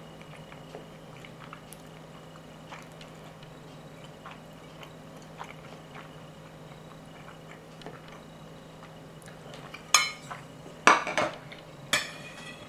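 Faint scattered ticks of a fork on a plate over a low steady hum, then, about ten seconds in, a run of loud clatters and clinks of dishware and cutlery being handled, one of them ringing briefly.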